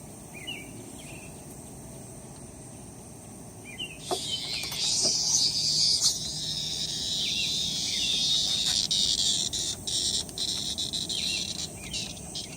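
A cicada, caught and held in a dog's mouth, buzzing loudly for about seven seconds, starting abruptly about four seconds in. Short bird chirps come before it.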